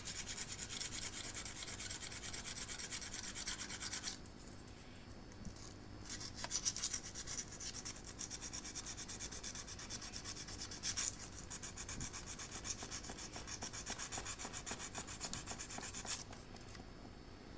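Small file rasping back and forth in rapid strokes against a model railway rail, filing away a proud bit of soldered dropper wire. Two long runs of strokes, with a short pause about four seconds in, stopping shortly before the end.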